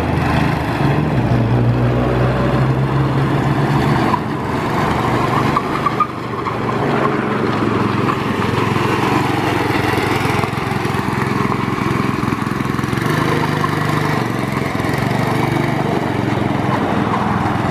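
Yerf-Dog two-seat go-kart's 6.5 hp single-cylinder engine running steadily as the kart is driven, its level dipping briefly about four and six seconds in.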